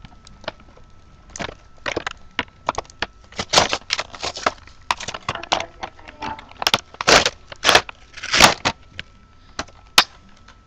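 Action-figure blister packaging, plastic bubble and cardboard, crackling and crinkling in the hands as it is worked open: irregular clicks and crunches, the loudest about eight seconds in.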